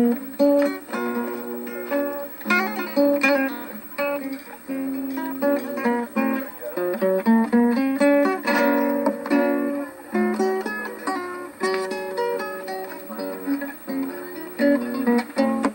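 Acoustic plucked string instrument, guitar-like, playing a steady run of picked and strummed notes in a middle-to-high register with little bass.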